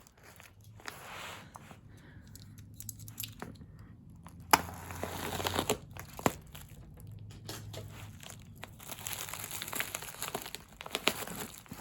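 Shipping package being torn open and its wrapping handled: irregular crinkling and tearing, with a couple of sharp snaps about four and a half and six seconds in, and denser crinkling in the last few seconds.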